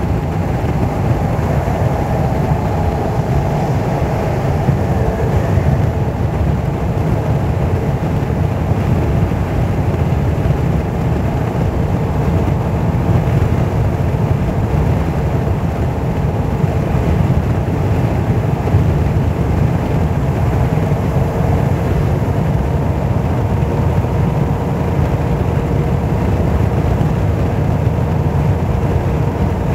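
Steady road and tyre noise of a car driving at highway speed, heard inside the cabin: a dense low rumble with a faint steady hum that grows a little plainer in the second half.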